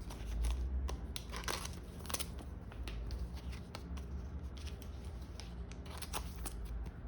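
Pokémon trading cards being handled: scattered short swishes and clicks as cards slide and flick against each other, over a low steady background hum.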